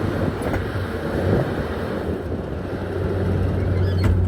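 Bobcat T770 tracked skid steer's diesel engine running steadily with a low hum, with a short click near the end.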